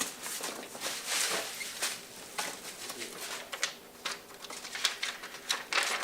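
Rustling, crinkling and clicking of packaging as a diesel air heater kit is unpacked from its box, in quick irregular bursts.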